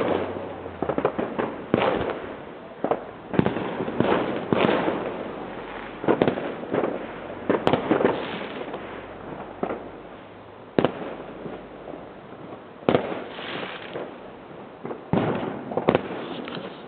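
Fireworks going off all around: a run of sharp bangs every second or two, each trailing off in a fading rumble, with crackling between them.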